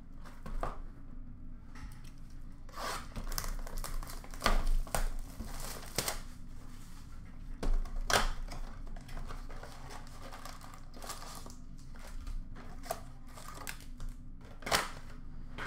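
Hands tearing open an Upper Deck hockey card blaster box and ripping into its packs: irregular tearing of cardboard and wrappers, with crinkling and rustling. The sharpest rips come about four and eight seconds in.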